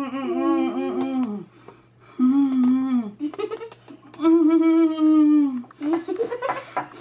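Closed-mouth humming and moaning from a person holding a mouthful of extra-sour Warheads candy, in a series of drawn-out wavering notes, the longest about four seconds in. A breathy rising sound comes near the end.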